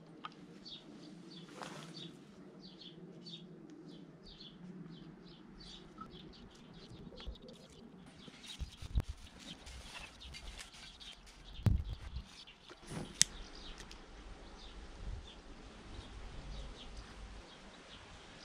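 Small birds chirping over and over, with the wooden clatter and knocks of split kindling sticks being stacked and wood shavings being piled around a wooden goblet; the sharpest knocks come a little past halfway.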